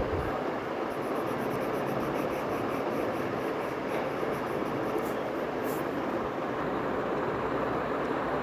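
Steady, even rumbling background noise coming in from outside through an open door.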